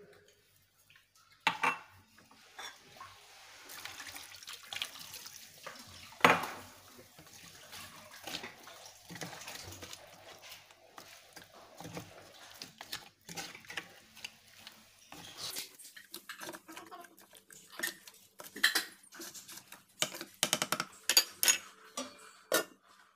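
Liquid poured into a large metal cooking pot, with a run of sharp clinks and knocks of metal against the pot, thickest over the last several seconds.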